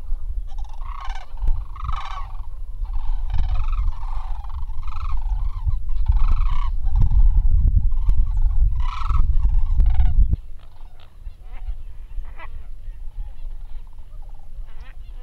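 Sandhill cranes calling: loud, repeated rolling bugle calls, sometimes overlapping, over a heavy low rumble. About two-thirds of the way through, the sound cuts off abruptly to a quieter scene with faint scattered bird calls.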